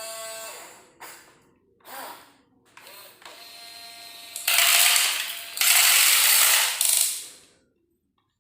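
Small electric gear motors of RC construction models running in short bursts: a whine that starts and stops several times, then a louder grinding, ratcheting run of about three seconds.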